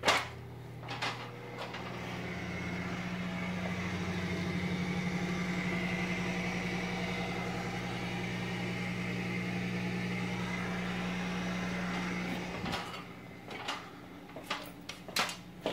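Tjernlund M-4 dryer booster fan running: a steady low motor hum with a rush of air, swelling over the first few seconds, then cutting off abruptly about twelve seconds in. A few sharp knocks follow near the end.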